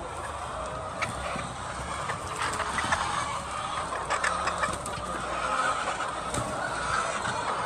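A flock of laying hens clucking: a dense, continuous chatter with short sharp calls scattered through it.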